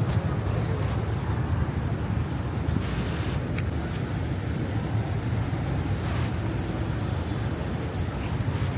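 Outdoor city street ambience: a steady low rumble, like traffic, with no single event standing out.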